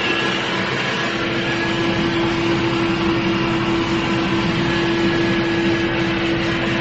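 Loud, steady unidentified drone: one constant hum over a broad rushing noise, holding even without rising or falling.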